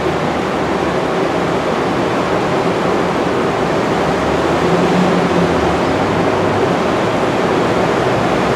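MTR Kwun Tong line C-train (China-built electric multiple unit) running through the station, a steady rolling rumble that slowly grows a little louder, with a faint humming tone under it.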